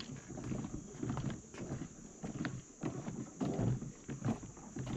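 Footsteps on a swaying swing bridge: irregular low thuds about twice a second as someone walks across it.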